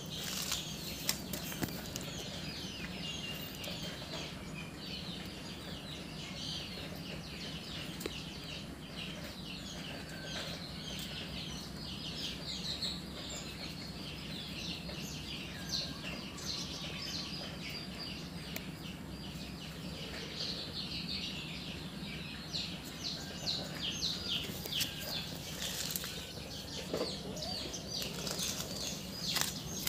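Many small birds chirping and twittering in quick short calls, busier in the second half, over a steady low hum.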